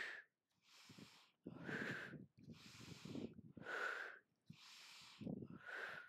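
A woman breathing hard and rhythmically while doing crunches: a forceful exhale on each crunch and a softer inhale between, about every two seconds. The breaths are faint.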